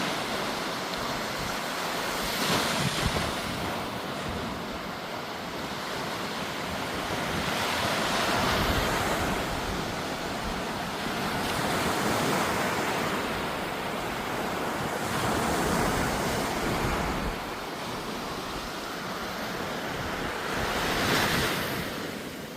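Sea waves breaking and washing in, swelling in surges every few seconds, with wind buffeting the microphone.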